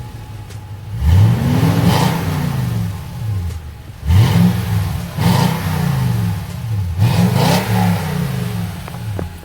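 Stock Toyota Tundra V8 with its factory exhaust, loud, revved while parked. It idles briefly, gives one long rev about a second in, then a string of about five quicker throttle blips.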